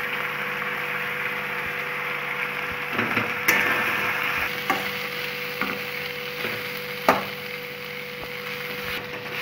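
Potatoes, onion paste and freshly added spices sizzling in hot mustard oil in a steel kadai, with a metal spatula scraping and knocking against the pan several times as the masala is stirred.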